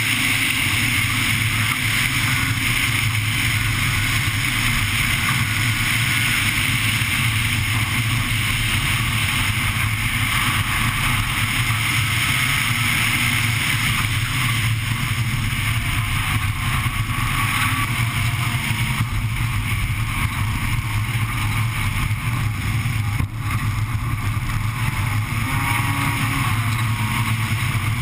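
Honda Civic Type R rally car's four-cylinder engine running hard at speed on a gravel road, heard from inside the cabin, with steady tyre and gravel noise underneath.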